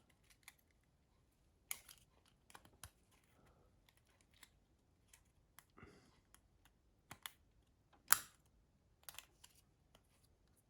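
Soft, scattered clicks and taps of small plastic phone parts being handled while the light guide is cleaned of dust, with one louder click about eight seconds in.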